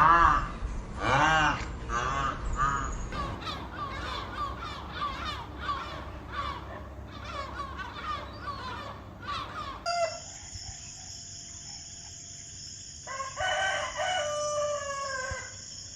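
Animal calls: a long run of short, arching calls repeated quickly for about ten seconds, then after an abrupt change a few longer calls that fall in pitch, over a steady high tone.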